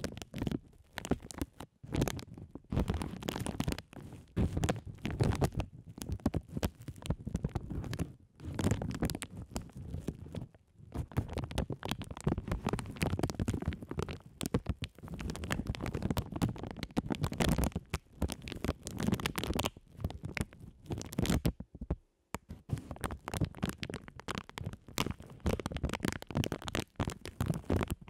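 Clear plastic bags crinkled and rubbed directly on the microphones: close, dense rustling and crackling with a deep rumble from the contact, pausing briefly a few times.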